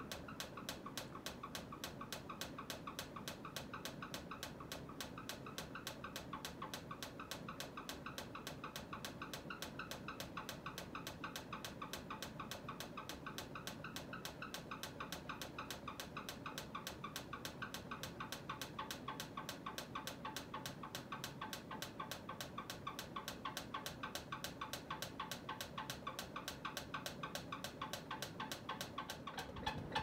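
Hunter Coastal Breeze 44-inch ceiling fan running at speed, with a light tick repeating evenly about three or four times a second over a soft hum.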